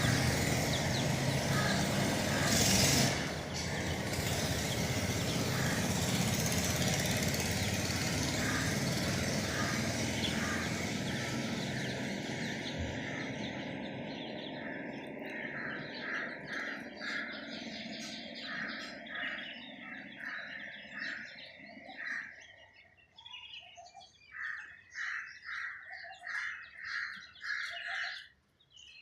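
Steady vehicle noise fades away over the first twenty seconds or so. Out of it comes a bird calling over and over in short repeated notes, a little more than one a second.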